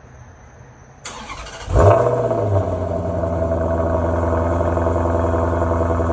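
Maserati Quattroporte 4.7 S's V8 cold-starting in Sport mode: the starter cranks briefly about a second in, the engine catches with a loud flare-up, then settles within a second into a steady high cold idle.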